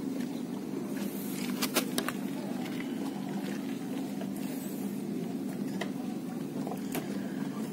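A motor hums steadily at a low pitch, with a few sharp clicks, several together about two seconds in and single ones later.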